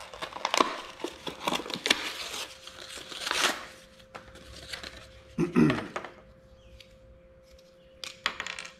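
A clear plastic-and-card package holding a marine epoxy syringe being ripped open by hand, with crinkling, crackling and sharp clicks of the plastic for the first few seconds, then quieter handling clicks.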